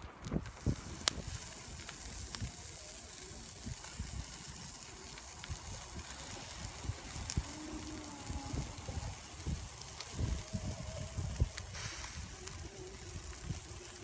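Kebabs on steel skewers sizzling over hot charcoal, a steady hiss, with wind rumbling on the microphone and a few sharp clicks.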